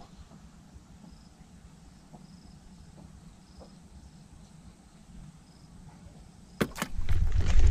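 Quiet open-air ambience with faint, short high insect chirps about once a second over a low rumble. Near the end, a sudden loud burst of sharp knocks and a heavy low rumble breaks in.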